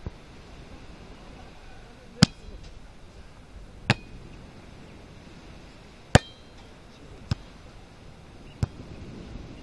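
Hands striking a volleyball in play: six sharp smacks spaced a second or two apart, the loudest about two seconds in and about six seconds in.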